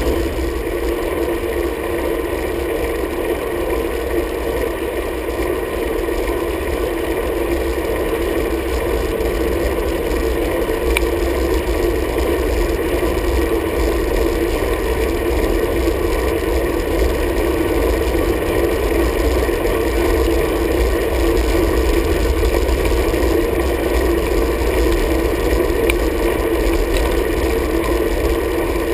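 Steady wind rumble and tyre noise from a road bike riding on asphalt, heard through the bike's own handlebar microphone, unchanging throughout.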